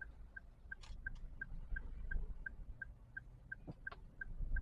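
Car turn-signal indicator ticking evenly, about three ticks a second, inside the cabin of a Daihatsu Terios, over the low steady rumble of its idling engine.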